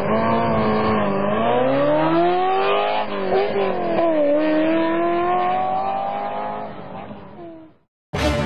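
Car engine revving, its pitch rising and falling slowly, then fading out near the end.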